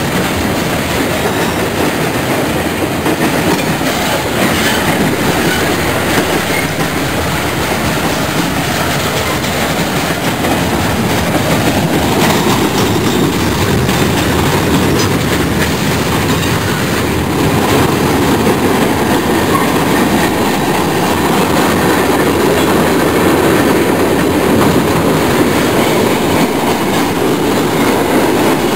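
Freight cars of a long mixed freight train rolling past: a steady rumble and clatter of steel wheels on the rails, growing a little louder in the second half.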